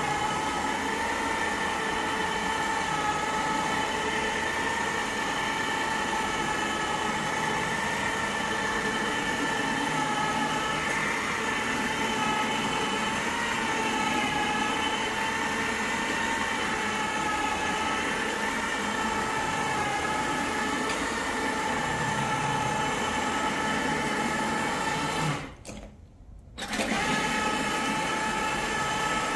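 Powered carpet-cleaning extraction head running as it is pushed across carpet: a steady whine of the motor and vacuum suction, wavering slightly in pitch. It drops out for about a second near the end.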